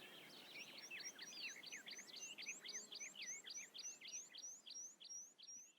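A songbird singing faintly, a quick run of the same high chirping note repeated about three times a second.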